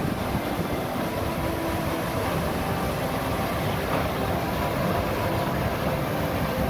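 Water gushing out of the Tanda Dam outlet and churning down the channel: a steady, loud rushing.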